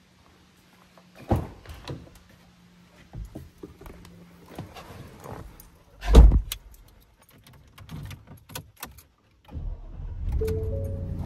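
Climbing into a Ford F-150 pickup: knocks and shuffling, then the driver's door shutting with a heavy thump about six seconds in. Near the end the truck's twin-turbocharged 5.0 Coyote V8 starts and settles into a steady idle, heard from inside the cab, with a short two-note dashboard chime.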